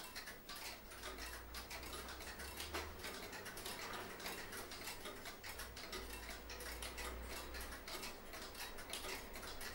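Faint, rapid ticking, with a low rumble that swells twice underneath.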